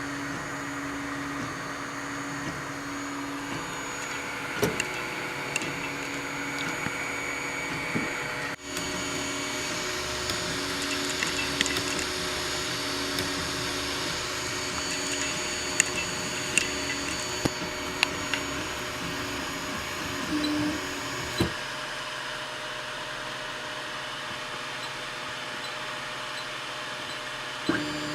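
Anycubic i3 Mega 3D printer running, its stepper motors whirring with shifting tones, while the extruder gives sharp, irregular clicks every second or few seconds. The clicking is the sign of filament not feeding properly, which the uploader puts down to slicer settings, an unlevel heat bed or old PLA, or else a worn extruder.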